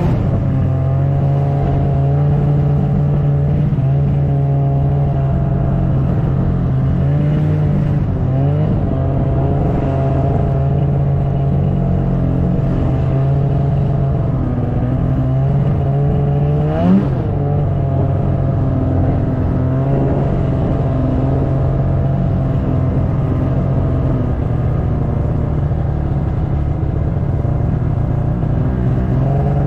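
Snowmobile engine running steadily under way, its pitch wavering as the throttle changes, with one quick rise in revs about 17 seconds in.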